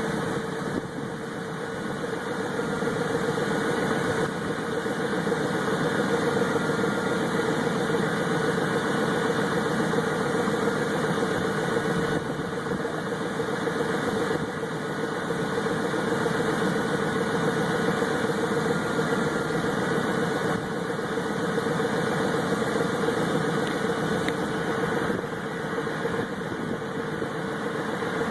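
Ford pickup truck engine idling steadily, an engine with a blown head gasket being run with sealant added to its coolant.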